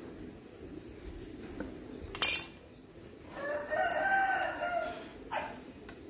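A rooster crowing once, a call of about a second and a half that starts a little past halfway through. A single sharp knock comes about a second before it.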